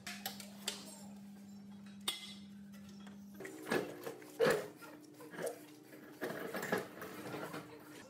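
Metal knocks and clanks, the loudest about four and a half seconds in, as a heavy old air compressor on its wheeled tank is pushed about, over a steady low hum that shifts slightly in pitch about three and a half seconds in.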